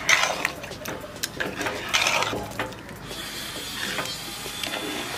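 A metal ladle stirring raw chicken through a thick yogurt marinade in a large aluminium pot, with scrapes and clinks against the pot's side, most of them in the first couple of seconds. From about three seconds in, a steady hiss of noise from building work nearby sits underneath.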